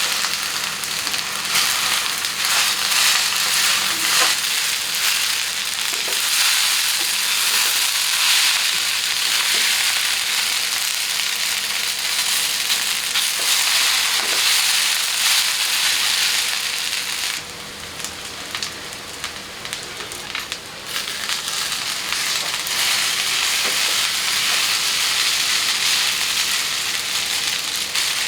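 Food sizzling in hot oil in a pan: a steady hiss with a few faint knocks. It drops quieter for about three seconds past the middle, then comes back up.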